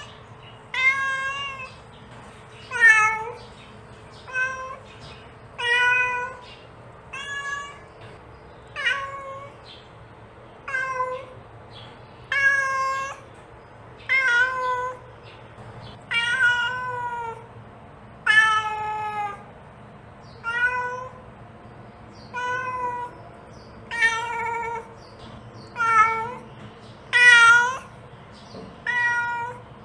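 Mother cat meowing over and over, calling her kittens: short meows, each under a second, coming about every one and a half to two seconds.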